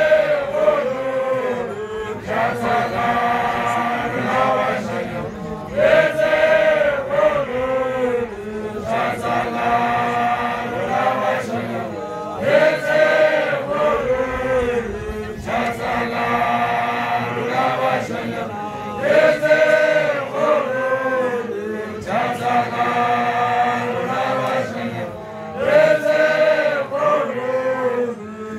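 A group of male voices chanting together in chorus, the same phrase coming round again about every six or seven seconds.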